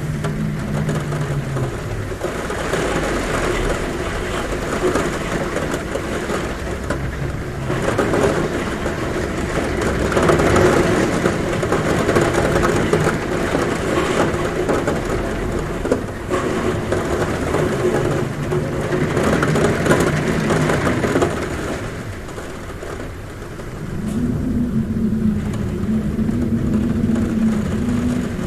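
Heavy rain drumming on a roof, with gusting wind that sets up a low hum at a window. The hum comes and goes several times as the gusts swell and ease.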